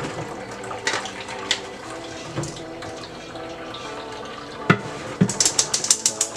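Blended fruit juice pouring from a blender jar into a fine-mesh metal strainer over a plastic container, with a few single clinks. About five seconds in, the strainer is shaken against the container, a rattle of quick even knocks, four or five a second.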